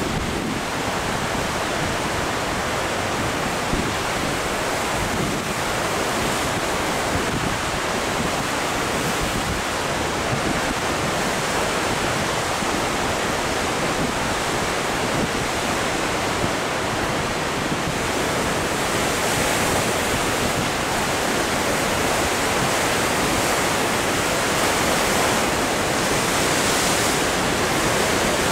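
Heavy ocean surf breaking over and around shoreline rocks, a steady rushing wash of white water that grows a little louder in the last third.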